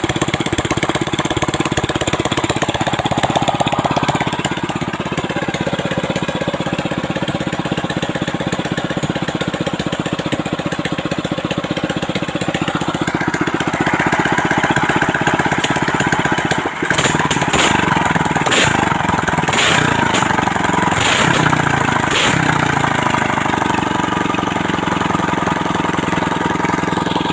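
Ketinting longtail boat motor running steadily, its revs rising a little past the middle. Near the end it briefly stumbles, then gives a run of sharp cracks with its pitch shifting up and down for a few seconds.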